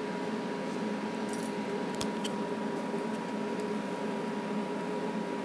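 Steady room hum and hiss with a faint constant tone, and a couple of faint sharp clicks about two seconds in.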